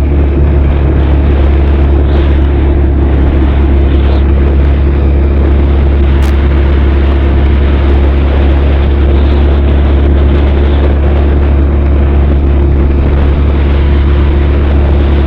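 Benelli TRK 502's parallel-twin engine and exhaust running at a steady cruising speed with no gear change or rev change, over a steady rush of wind and road noise.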